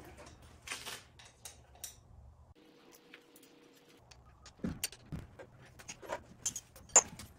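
Sharp metallic clicks and small rattles as a 6 mm Allen wrench works on a unicycle handlebar stem and the metal parts are handled, busier in the second half, with one very sharp click near the end.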